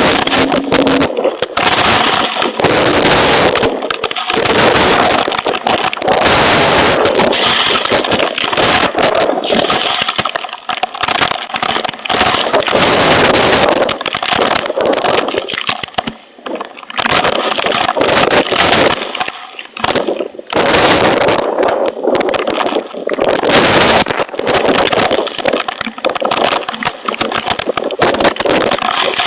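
Hail pelting a hail protector cover: a loud, dense clatter of countless rapid impacts, easing off briefly twice partway through.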